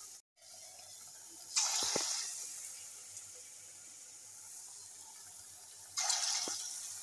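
Hot oil sizzling steadily in a wok as jackfruit-batter fritters deep-fry. The sizzle surges suddenly twice, about a second and a half in and near the end, as fresh lumps of batter are dropped into the oil.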